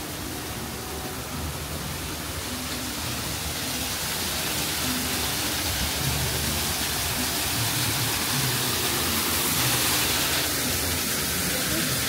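Steady rushing of running water, growing louder over the first several seconds, with a low murmur of people's voices underneath.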